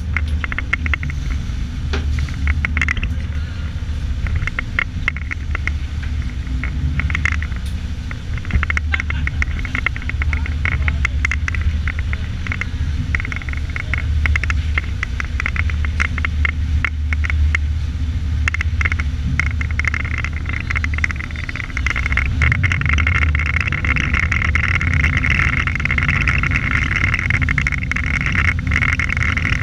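Boat engine running steadily with a low drone, with a constant crackle of wind and water noise over it that grows louder about three quarters of the way through.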